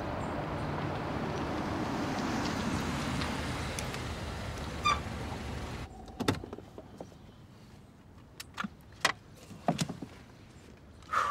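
A Mercedes-Benz car drives up with a steady engine and tyre noise, with a single click about five seconds in. The noise then cuts off abruptly and, inside the car, a few sharp clicks and small knocks follow.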